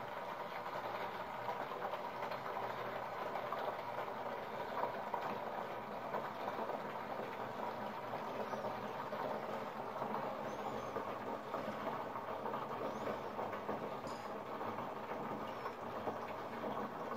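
Liquid running from a bucket's tap through a plastic tube into a closed plastic canister, splashing and trickling steadily inside it.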